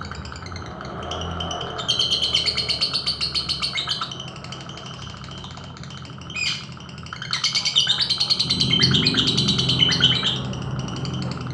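Lovebird calling in two long, rapid runs of high chirps, the first lasting about two seconds and the second about three, with a short falling note between them. Guitar music plays underneath.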